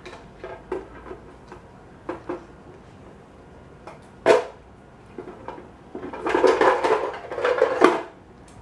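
Plastic toy doctor's-kit pieces knocking and clattering as a toddler handles and rummages through the kit: a few light knocks, a sharp clack about four seconds in, then a couple of seconds of rattling near the end.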